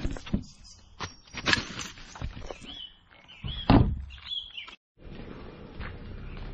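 Rubbish dropped into a plastic wheelie bin: rustling and knocks against bin bags, with one loud thump a little past the middle. The sound then drops to faint, steady outdoor background.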